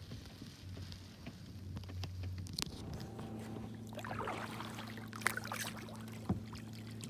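Kayak paddle strokes: water splashing and trickling off the blades in washes about every second and a half, with a few sharp clicks, over a faint steady low hum.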